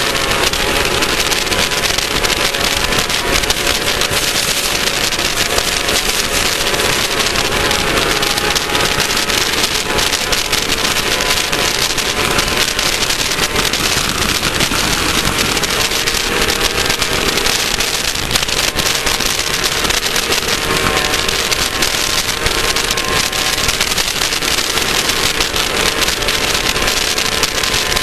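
Air-cooled VW 1600 engine of a Class 1600 off-road race car running hard and steadily under load, with a constant clatter of small knocks and rattles from the car over rough ground.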